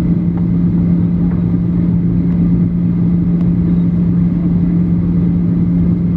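Boeing 737 cabin noise in flight, heard from a passenger seat: a steady engine and airflow drone with a strong, even low hum.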